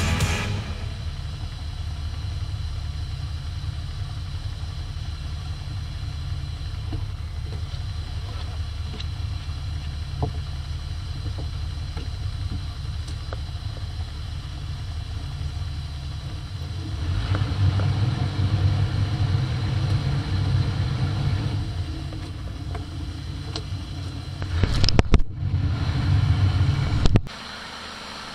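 Fishing boat's engine running steadily underway, a low rumble mixed with wind and water rushing past the hull. It grows louder for a few seconds past the middle and again near the end, then drops away suddenly.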